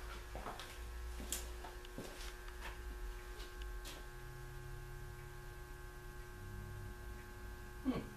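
Steady electrical hum with a low rumble, broken by scattered faint clicks and one sharper metal clink near the end as the torn-down Packard engine's crankshaft assembly is handled.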